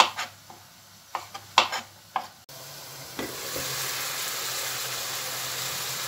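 About five sharp knife chops through tomatoes onto a plastic cutting board, then, from about two and a half seconds in, a steady sizzle of diced chicken breast and mushrooms frying in a pan.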